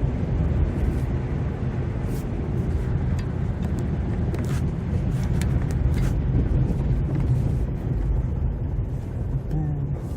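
Road noise inside a moving car: a steady low rumble of engine and tyres, with scattered light clicks.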